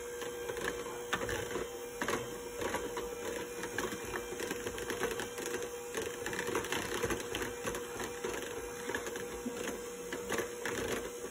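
Electric hand mixer running steadily, its beaters whisking milk and liquid coffee creamer in a plastic tub: a steady motor hum with scattered light clicks.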